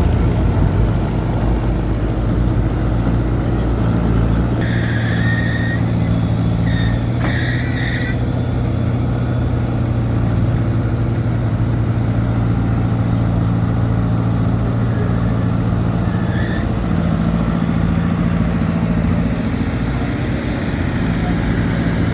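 Weserhütte HW7 hydraulic excavator's diesel engine running steadily with a low, even drone. Two brief high-pitched tones sound over it, about five and seven and a half seconds in.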